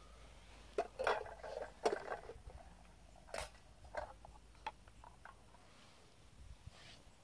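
Stainless steel camping pot, lid and cup being handled: a cluster of clinks and clatter about a second in, then a few separate light metal clinks.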